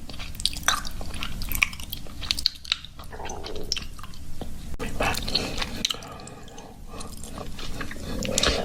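Stomach growling picked up close to the microphone: a run of wet gurgles and squelchy clicks, quieter for a moment around six to seven seconds in.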